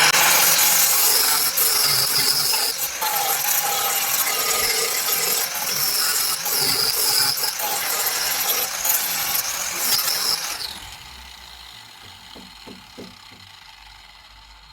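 Angle grinder with a flap disc grinding down fresh welds on a car body panel, its whine wavering as it bites. It runs loud for about ten seconds, then is switched off and spins down.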